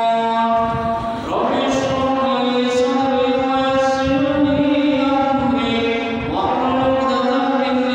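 A man's voice chanting a melodic religious recitation in long, drawn-out held notes, pausing for a breath about a second in and again about six seconds in.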